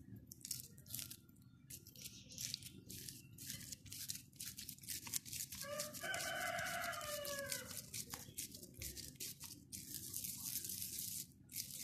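Soft wet squelches and sticky clicks of mashed potato being pressed and rolled between oiled palms around a cube of cheese. In the middle, a single drawn-out pitched call of about two seconds rises above the handling and dips slightly at its end.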